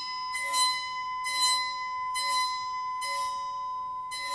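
A bow drawn again and again across the edge of a square metal Chladni plate clamped at its centre. The plate rings with a steady high tone at one of its resonant frequencies, the mode that drives the sand into the cross-and-arcs pattern. Each stroke, about once a second, adds a brief scratchy hiss over the sustained ring.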